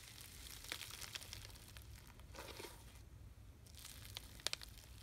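Hand squeezing and pulling apart stiff, old clear slime packed with foam beads: soft crackling and popping in three spells, with a few sharp clicks, the loudest one near the end.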